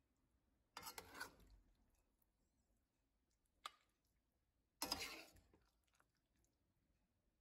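A spatula scraping twice across a plate of stew, each scrape lasting about a second, with a single short click between them.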